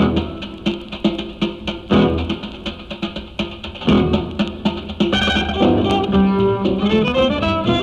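Background music: quick plucked notes over a steady drum beat, with held string notes joining about five seconds in.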